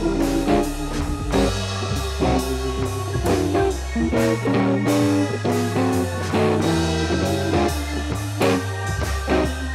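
Background music: guitar-led blues-rock with bass and drums and a steady beat.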